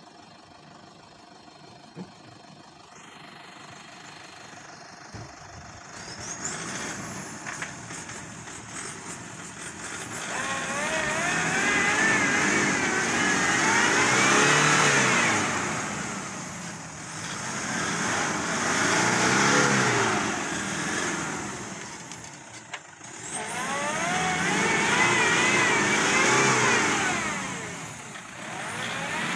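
Toyota Hilux 3.0 D-4D turbodiesel engine revving hard in three long surges, the pitch climbing and falling each time, as the pickup's mud-caked tyres spin: the truck is bogged down in mud and cannot get through.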